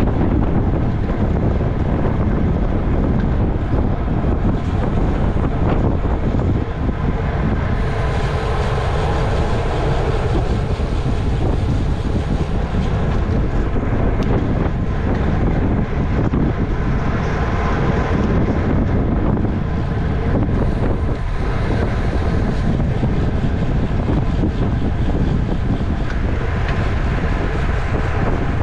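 Steady wind rushing over the microphone of a camera riding on a road racing bicycle at race speed.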